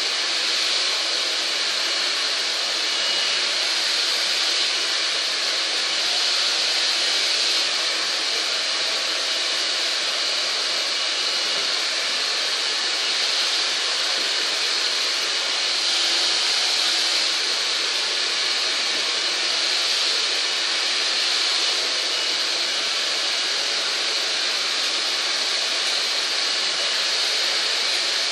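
Steady rushing air noise from a blower running continuously at an even level, with a faint motor hum underneath.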